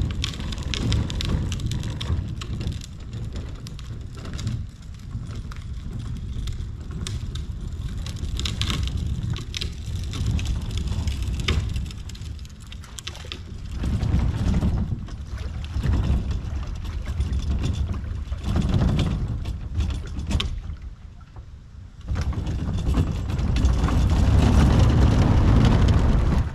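Wind buffeting the microphone in gusts, strongest near the end, over scattered crackles, knocks and splashing as a small boat on its two-wheeled transport trolley is pushed down into shallow water.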